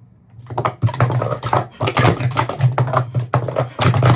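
Rapid clatter of plastic sport-stacking cups being upstacked and downstacked on a stacking mat during a timed cycle, starting about half a second in.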